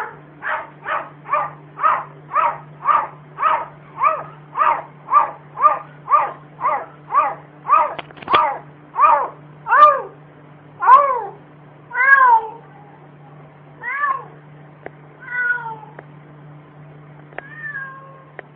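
A domestic cat giving short, bark-like calls in a quick run of about two a second, then slowing to a few spaced calls that bend up and down in pitch.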